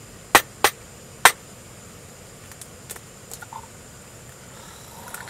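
An egg knocked three times against the rim of a metal camp pot to crack it, followed by a few faint small clicks as it is broken open over the pot.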